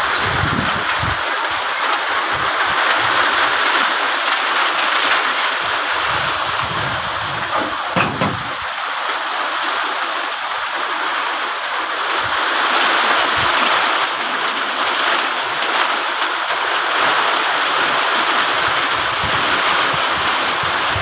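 Heavy rain pouring steadily in a windstorm, with gusts of wind rumbling on the microphone now and then. A sharp knock about eight seconds in.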